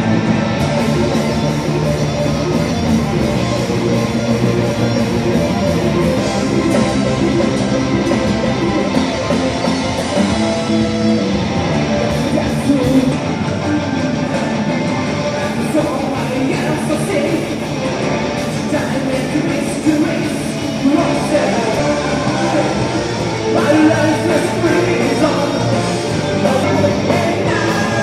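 Live heavy metal band playing: electric guitar and keyboards with singing, loud and continuous.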